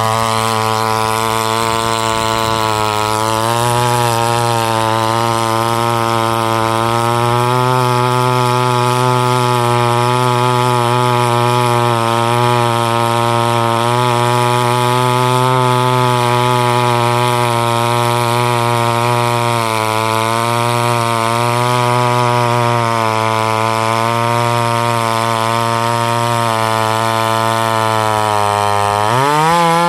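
A 62cc two-stroke Salem Master 6220G chainsaw cuts through a large log with its 20-inch bar fully buried. The engine holds a steady, labouring pitch under load that wavers a little, then revs up sharply and drops back near the end. The owner takes its failure to reach full RPM for a carburetor that is not quite set right.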